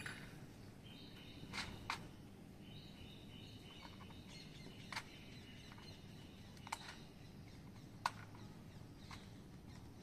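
Short, sharp bird chirps, about six spread out, over faint outdoor background noise with a thin steady high tone.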